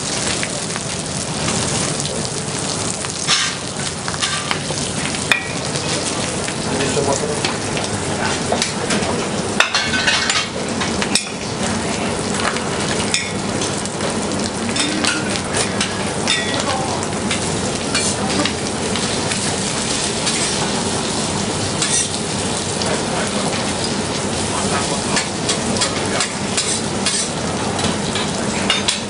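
Steady sizzling of food frying in a pan, with scattered sharp clicks scattered through it.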